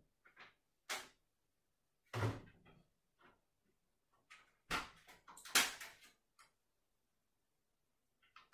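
Kitchen sounds of dinner being prepared: about eight separate knocks and clacks of cupboard doors and things being handled. There is a dull thump about two seconds in, and the sharpest knocks come around five to six seconds in.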